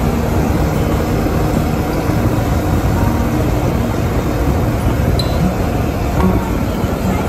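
Off-road vehicles driving along a dirt trail: a steady engine drone under a dense, low rumble of tyres on dirt.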